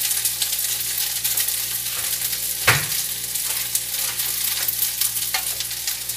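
Sliced papaya and sardines simmering in a frying pan, a steady sizzling crackle under a low hum, with one sharp knock about two and a half seconds in.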